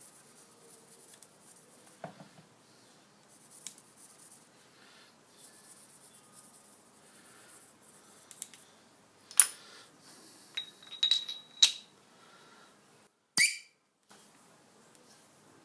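Faint scratching of a pencil marking lines along a ground steel R8 arbor taper, then several sharp metal clinks, one ringing briefly, and a louder clink about 13 seconds in as the steel ring taper gauge is picked up and fitted over the taper.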